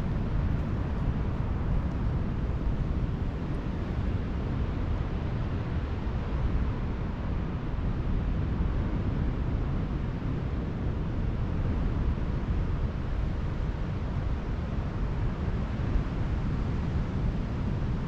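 Wind buffeting the microphone with the Black Sea surf underneath: a steady low rumble without breaks.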